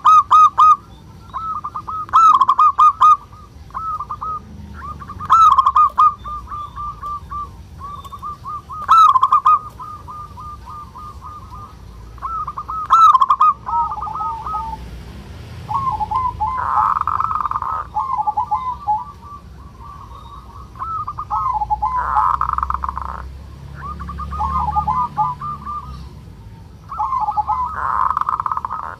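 Male zebra dove (perkutut) giving bursts of rapid, trilling coos, the loudest every few seconds in the first half, with three rougher, rasping phrases in the second half: the 'ngerot' (kerot) call of a bird in breeding condition.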